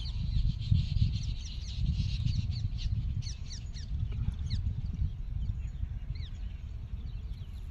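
Birds chirping, a quick scatter of short, high, falling calls that is thickest in the middle, over a low, uneven rumble of wind on the microphone.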